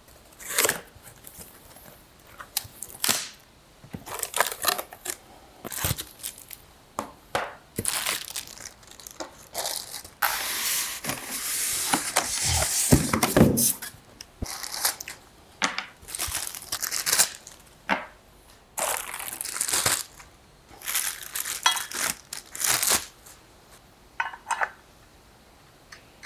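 Cardboard monitor box being opened and its styrofoam packing pulled out: a series of separate rustling, scraping and crinkling handling noises, with a longer stretch of steady scraping about ten to fourteen seconds in.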